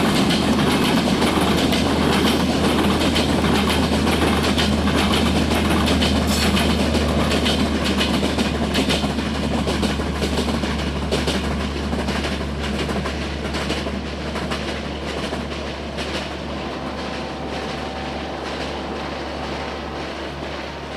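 A broad-gauge passenger train's coaches roll past on the track, with wheels clicking over the rail joints under a steady low rumble. The sound fades through the second half as the end of the train draws away.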